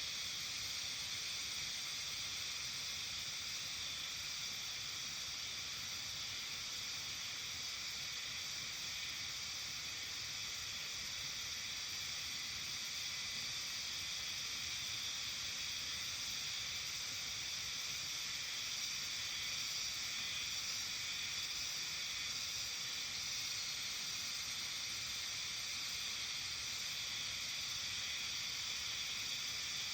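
Steady early-summer evening outdoor ambience of a Japanese mountain village: an even, unbroken hiss weighted toward the high range, with no single call or event standing out.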